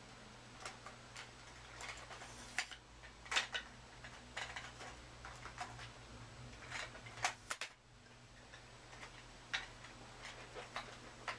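A tripod's legs being unlocked and extended by hand: scattered, irregular clicks and clacks of the leg locks and sections, over a faint steady low hum.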